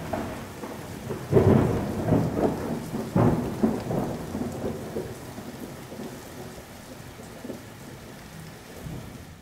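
Thunderstorm: steady rain with rolls of thunder, the loudest about one and a half and three seconds in, fading away toward the end.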